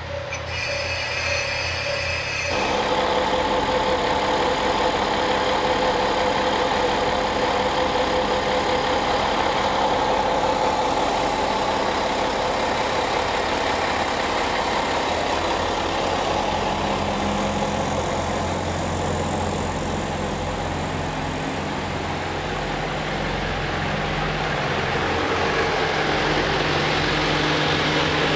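Diesel engines of the Aru Ressha, a KiHa 47-based railcar train, running with a steady low hum while its cars roll slowly past along the platform. It gets louder about two and a half seconds in.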